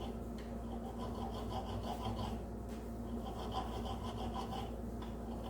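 Hand thread file scraping back and forth over a steel bolt's threads in quick strokes, two runs with a short pause between, to clean up damaged threads.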